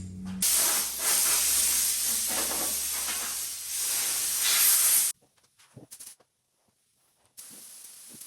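Compressed air hissing from an air gun in one long blast of about five seconds, dipping briefly twice, then cutting off suddenly.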